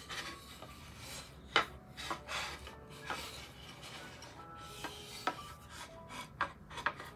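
Wooden guitar-stand parts being handled during assembly: irregular scraping and rubbing of wood and metal, with a few sharp knocks, the loudest about a second and a half in. Music plays underneath.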